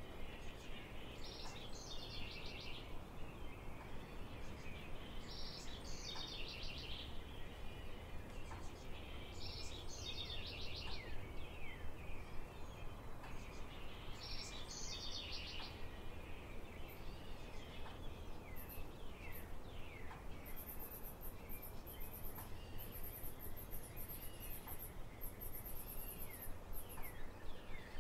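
A songbird singing the same short phrase about every four seconds, with a high, pulsing insect trill joining about two-thirds of the way in, over a steady low background hum of outdoor noise.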